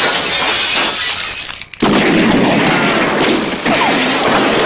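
Heavy gunfire with glass shattering, a dense continuous din of shots and breaking windows. It drops off briefly a little under two seconds in, then starts again.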